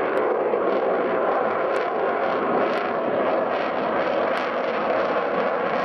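Avro Vulcan's four Rolls-Royce Olympus turbojets running steadily as the delta-wing bomber pulls up into a steep climb overhead, a continuous jet noise that neither rises nor fades.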